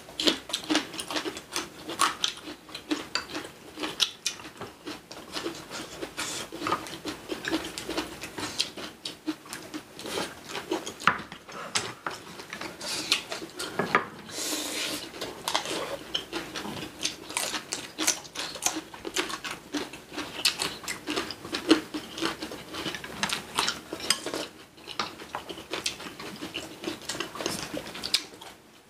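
Eating sounds at a table: utensils clicking and scraping against dishes in a dense, irregular run of small clicks, along with chewing.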